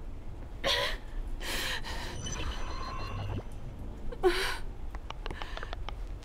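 A woman gasping and sobbing in pain: three sharp breaths with pauses between, then a few faint clicks near the end.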